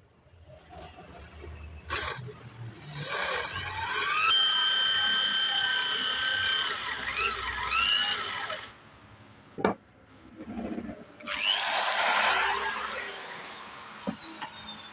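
Electric drill running in two goes. The motor whines up to speed and runs for about five seconds, then stops with a sharp click. It starts again and winds down with a long falling whine.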